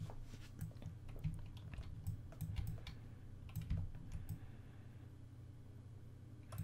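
Scattered clicks and taps of a computer mouse and keyboard, over a faint steady low hum. The clicking thins out about four and a half seconds in.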